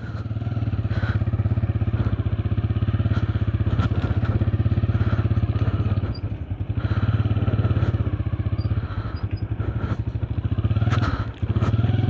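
Motorcycle engine running while being ridden, a steady, fast-pulsing hum that dips briefly about halfway and again near the end.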